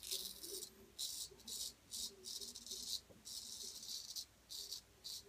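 Gold Dollar 800 straight razor scraping through lathered beard stubble: a faint run of about a dozen short, high, scratchy strokes, one a little longer near the middle.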